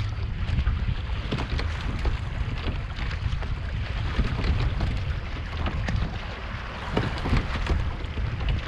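Wind buffeting the microphone in a heavy low rumble, over water rushing and splashing irregularly against the hull of a sailing boat under way.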